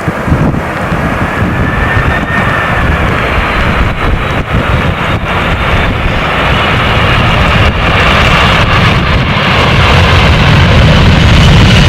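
Jet airliner's engines, a loud rumble with a faint high whine, growing steadily louder as the aircraft approaches.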